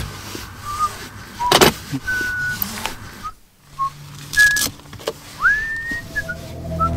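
Metal catches of an aluminium case snapping open with sharp clicks, three in all, as the lid is handled and opened. Short high whistling chirps sound in between.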